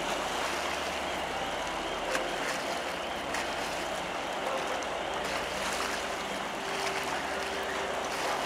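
Steady rush of churning water from a passing car ferry's wake, with a faint low hum underneath.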